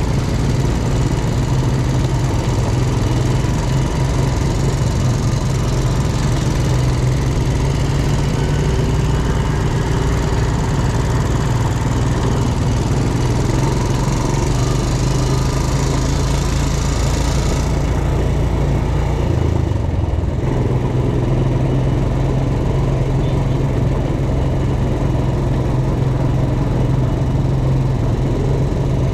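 ATV engine running steadily, with a constant low hum and a hiss over it; the upper hiss cuts off suddenly a little past halfway.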